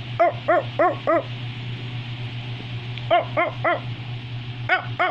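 Short, pitched barks in three quick runs: four, then three, then two, over a steady low hum.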